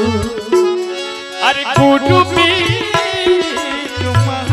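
Indian devotional music in an instrumental passage: tabla strokes with deep bass-drum notes under a sustained melody from harmonium and a lead line that slides up and wavers partway through.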